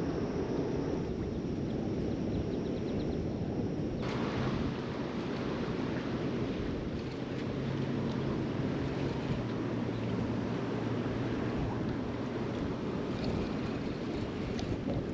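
Wind buffeting the microphone at the riverside, a steady rumbling noise with no distinct events. The sound changes abruptly about four seconds in.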